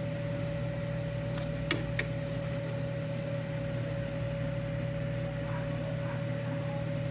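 Steady electric hum of a running kitchen appliance, with two sharp clicks of metal tongs against the frying pan about two seconds in.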